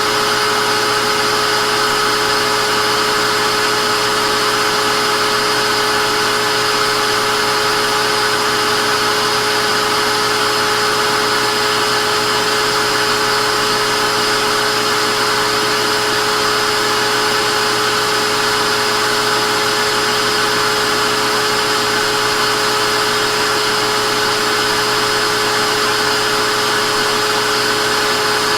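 Vacuum cleaner motor running steadily, a loud even rush of air with a constant high whine over it.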